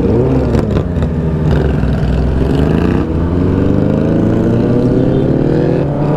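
Kawasaki ZX-10R's litre-class inline-four accelerating hard from a stop, its note rising in pitch through the gears, with an upshift about three seconds in and another near the end.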